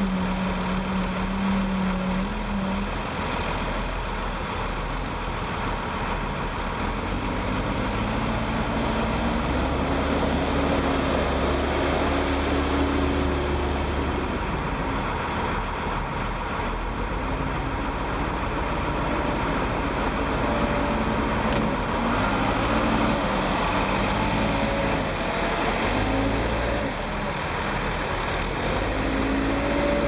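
Case 580L Turbo backhoe loader's diesel engine running under load, its revs rising and falling as it drives and works the loader bucket with a load of topsoil.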